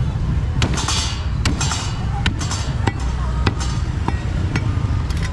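A quick, irregular run of sharp knocks, about fifteen in all, over a steady low rumble and market voices.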